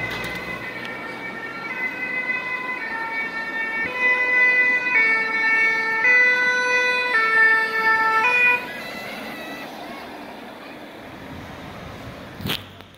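French fire-service two-tone siren ('deux tons') alternating between two notes about once a second. It grows louder about four seconds in and cuts off after about eight and a half seconds, leaving vehicle and traffic noise.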